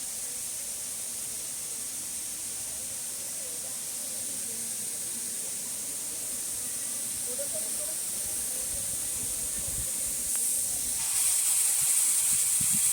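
Steady high-pitched hiss, growing louder about eleven seconds in, with faint wavering calls or voices underneath.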